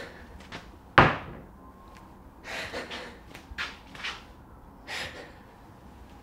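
A jar of peanut butter banged down hard on a kitchen counter once, about a second in, with a short ring-out. A few softer, shorter noises follow.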